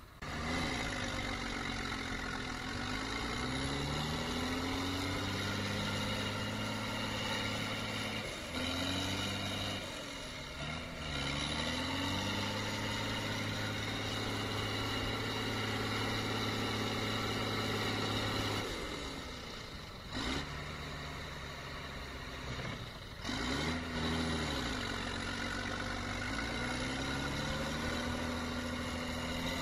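Diesel farm tractor engines working hard under load, running at steady high revs with the pitch dropping and climbing again several times as the throttle is eased and opened while trying to pull out of deep mud.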